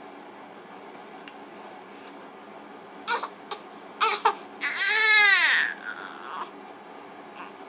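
A one-month-old baby fussing: a few short, sharp sounds about three and four seconds in, then one loud cry of about a second that falls in pitch and trails off.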